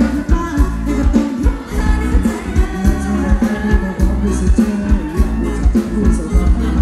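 Live Thai ramwong band music: a singer over a steady drum beat and heavy bass.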